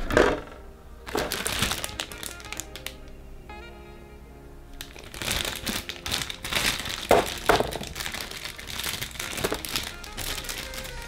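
Background music, over the crinkling and sharp clicks of plastic kit parts and their packaging being handled, in clusters with short pauses between.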